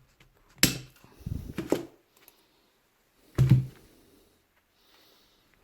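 Clicks and knocks of metal parts and hand tools as a retaining ring is taken off the barrel assembly of a Hilti TE 40 AVR rotary hammer: a sharp click, a short rattle, and a louder knock about three and a half seconds in.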